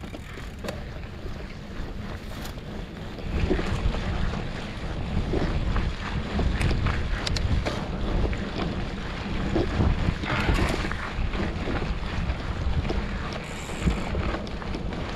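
Wind rumbling on the camera microphone of a mountain bike riding down a dry dirt singletrack. Short knocks and rattles come from the bike and its tyres on the rough trail. The rumble gets louder about three seconds in.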